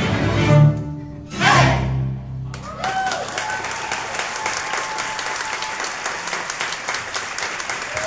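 String orchestra playing its closing chords, ending on a last loud accent about a second and a half in. The audience then breaks into steady applause, with a few whoops.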